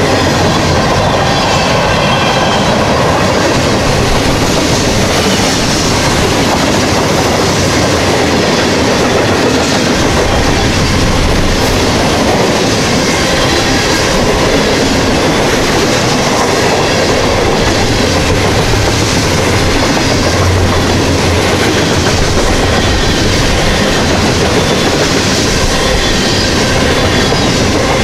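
Freight cars (boxcars, covered hoppers and gondolas) rolling past at close range: a steady, loud rumble, with steel wheels clattering on the rails.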